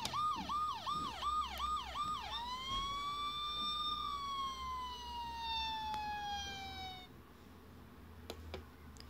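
Toy Playmobil ambulance's electronic siren: a fast warbling yelp of about three sweeps a second. It switches about two seconds in to a single slow wail that rises and then falls gradually, and cuts off about seven seconds in. A few faint clicks follow near the end.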